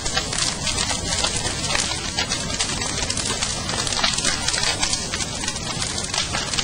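Bonfire of broken wooden planks and debris burning with a dense, steady crackle.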